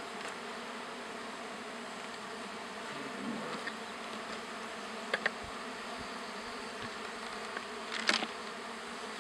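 Steady buzzing of a mass of honey bees around an opened hive. There are a couple of short clicks about five seconds in and a brief knock or scrape near the end.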